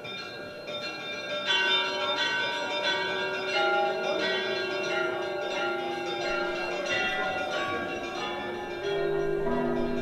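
Bells ringing, many struck tones sounding one after another and overlapping, louder from about a second and a half in.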